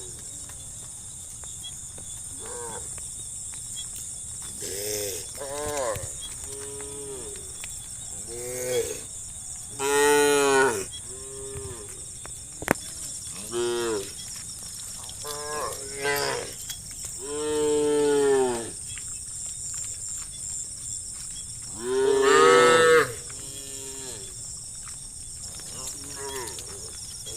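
A herd of cattle mooing: a dozen or more separate calls at different pitches from several cows, some short and some drawn out, the loudest about ten seconds in and again past twenty seconds. A steady high hiss runs underneath.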